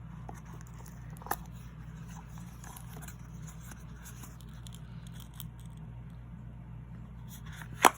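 Light handling of small packaging: faint taps and scrapes, a click about a second in and a sharp click near the end, over a steady low hum.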